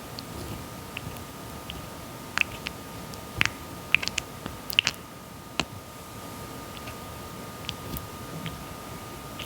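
Red-footed tortoise biting and chewing soft papaya: irregular wet clicks and squishy snaps, thickest in the middle stretch, over a faint steady hum.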